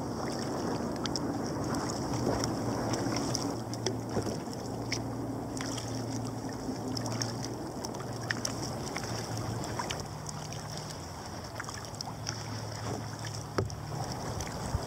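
Sea kayak under paddle: water splashing and lapping along the hull, with scattered small drips and splashes from the paddle blades and light wind on the microphone. A low steady hum runs faintly underneath.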